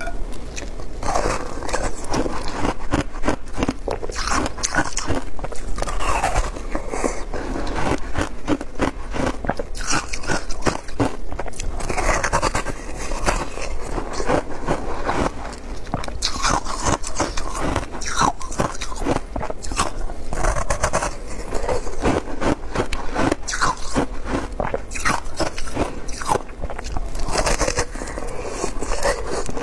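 Close-miked biting and chewing of a block of shaved ice dipped in passion fruit juice: a dense run of crisp, crackling crunches.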